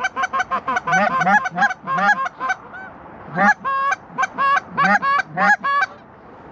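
Canada goose honking and clucking, loud and close: a quick run of short honks for about two and a half seconds, a brief pause, then spaced single honks that stop about six seconds in.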